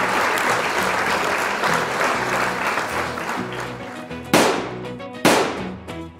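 Edited soundtrack, not the animals: applause-like hiss over low sustained music notes, fading out. Then come two sudden sharp hits with falling tails, about a second apart near the end.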